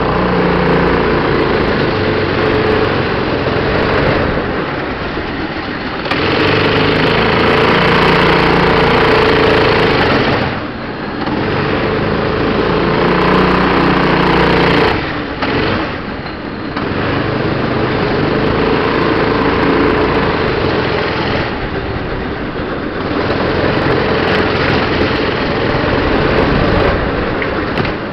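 Go-kart engine running on the throttle, heard close up from a camera mounted on the kart. About every five seconds it drops off for a second or two, as the driver lifts for a corner, then pulls again.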